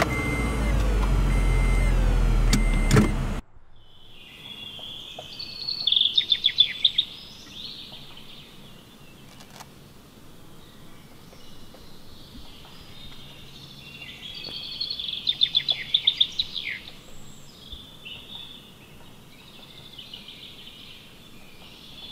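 Wild birds singing, with two bursts of rapid chirping trills. Before that, for about the first three seconds, a loud steady car-cabin hum with a short high tone repeating, cut off suddenly.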